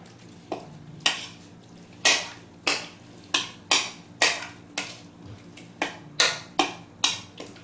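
A kitchen utensil knocking sharply against cookware about a dozen times, a little under two knocks a second and unevenly spaced, as ingredients are worked in the pot.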